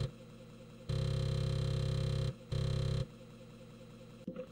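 Emulated floppy disk drive noises as the compiler reads from disk. A steady buzzing drive sound comes in bursts: one of about a second and a half, then a short half-second burst, then a pause with a faint background and a brief click near the end.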